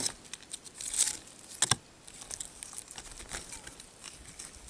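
Crinkling, tearing and crunching from a baked s'more of chocolate, graham cracker and marshmallow being cut and pulled apart by hand. There are three sharper bursts in the first two seconds, then fainter scattered ticks and rustles.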